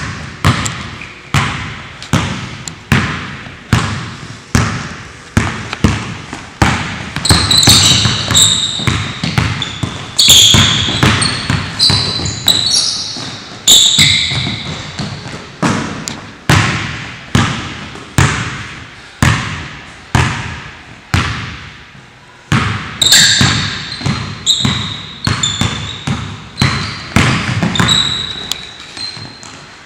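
Basketball dribbled steadily on a hardwood gym floor, about one and a half bounces a second, each bounce ringing out in the hall. Sneakers squeak sharply on the floor in two stretches as the players cut and jump.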